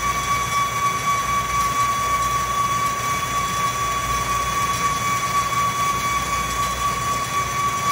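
Atlas metal lathe taking a boring cut with a carbide-insert boring bar, giving a steady high-pitched whine over the low hum of the running lathe. The whine is the boring bar chattering.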